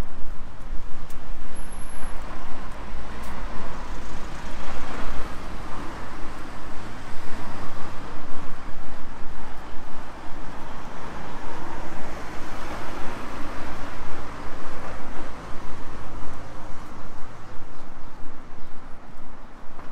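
Outdoor city noise: road traffic passing, with a steady low rumble underneath.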